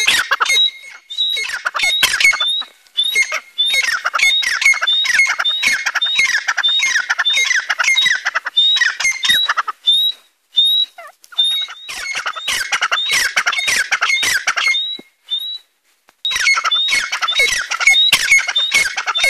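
A pair of grey francolins (Dakhni teetar) calling loudly together: rapid runs of shrill, repeated notes, pausing briefly twice before starting up again.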